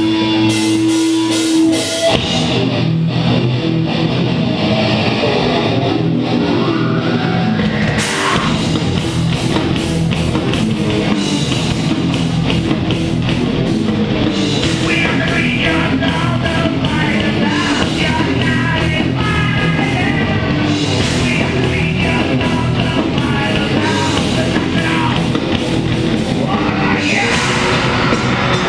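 Live heavy rock band playing loud: distorted electric guitars, bass and drum kit. It opens on a held note, the full band crashes in about eight seconds in, and a singer comes in around the middle.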